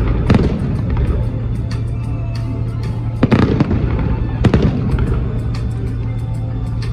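Fireworks salute going off: a rapid series of bangs and crackling pops, with the densest clusters a little before and just after the middle, over a steady low rumble.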